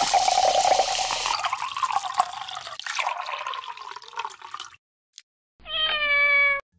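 Liquid poured from a glass bottle over ice into a glass tumbler, a splashing pour with a faint tone, running about four and a half seconds. Near the end a cat meows once, a single slightly falling meow about a second long.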